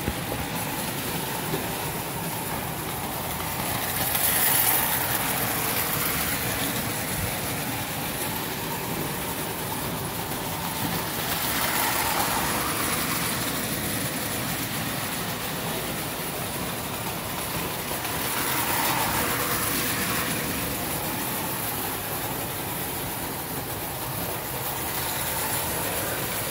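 1950s Marx toy electric trains running on three-rail tubular track: a steady motor whir and wheel clatter on the metal rails. It swells about every seven seconds as a train comes round close by.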